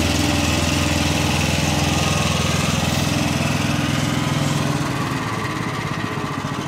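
Small single-cylinder gasoline engine driving a log planer's spiral cutter head, running steadily and getting slightly quieter near the end.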